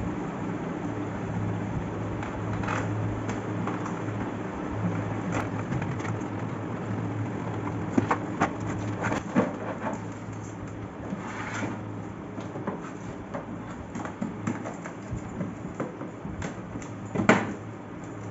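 Plastic knocks and clatter as an RO water purifier's casing is tilted and shifted on a stone countertop, with the sharpest knocks about eight, nine and seventeen seconds in, over a steady low hum.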